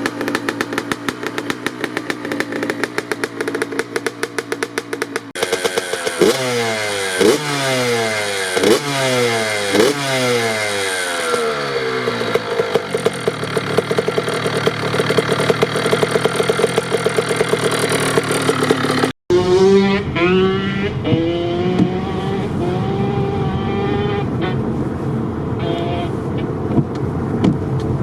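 Honda CR85 two-stroke dirt bike engine running steadily, then revved in about five quick rising blips roughly a second apart and held at high revs. After a sudden cut, it climbs in pitch again in a run of rising revs.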